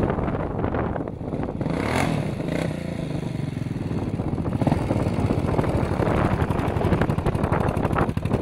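Dirt bike engine running as the bike rides across and pulls up close by, getting louder after about five seconds.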